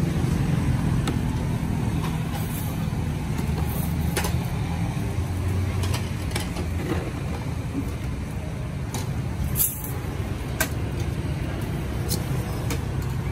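Street traffic: a steady low engine drone, stronger in the first half, with scattered sharp clicks and clinks over it.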